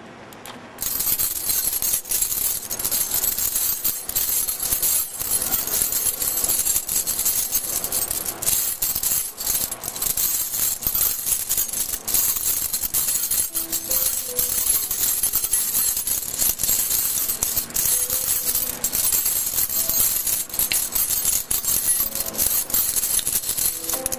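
Metal rings and wire loop of a six-ring Chinese rings puzzle clinking and jangling rapidly as they are slid on and off the bar, a continuous metallic rattle that starts about a second in.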